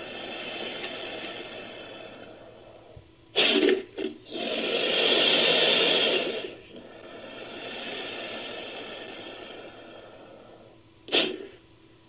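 American alligator sound effect made from crocodilian recordings: long breathy hisses that swell and fade, broken by a sudden loud burst about three seconds in and a shorter one near the end.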